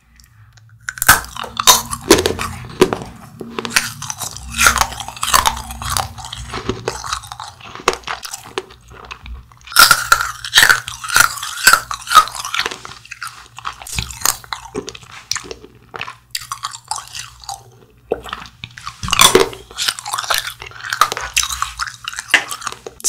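Close-miked bites and chewing of a chewy stick candy: bouts of crisp crunching and wet chewing, loudest about a second in, again about ten seconds in and near the end.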